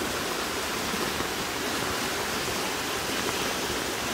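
Muddy floodwater rushing steadily down a normally dry creek bed in sudden flood, the water still rising.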